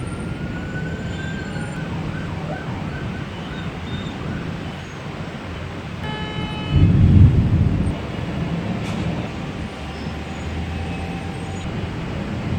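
Urban storm ambience: a steady low rumble of city traffic with a faint siren rising near the start. About seven seconds in, a loud low rumble of thunder lasts roughly a second, just after a short horn-like tone.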